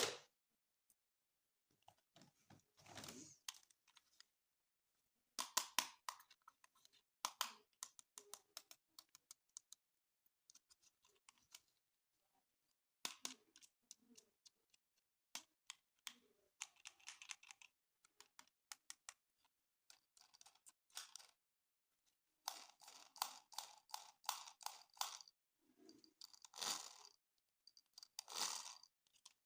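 Toy packaging being opened and handled: irregular bursts of crinkling, tearing and clicking, with short pauses between them.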